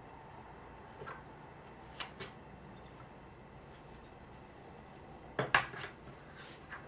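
Small hard objects being handled and set down on a table: a few light clicks and knocks, with a louder cluster of them about five and a half seconds in.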